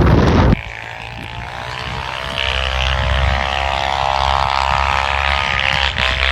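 Wind buffeting the microphone, cut off abruptly about half a second in, followed by a steady engine drone that gradually grows louder.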